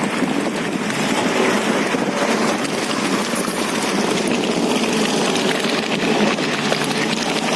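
UAZ Bukhanka van's engine running steadily with an even, unbroken drone.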